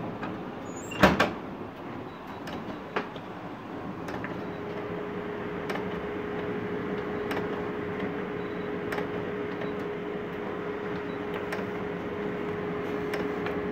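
Canon imageRUNNER 2420 photocopier starting a print: a sharp click about a second in, then its motors run with a steady hum and a faint click roughly every one and a half seconds as the side rollers try to pick paper from the side tray. The side rollers fail to pick the sheet cleanly, which jams and tears the paper.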